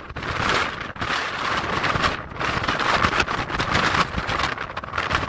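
Strong gusty wind buffeting the microphone, a rough rushing noise that rises and falls in gusts.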